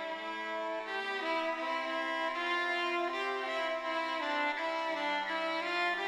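Background music: a slow melody of held, overlapping notes that change about once a second.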